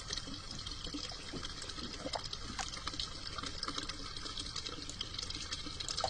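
Water trickling steadily through a rice paddy that is being drained, a continuous hiss dotted with many small ticks.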